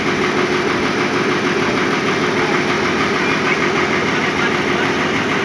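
Bulldozer's diesel engine running steadily, with a fast even pulsing.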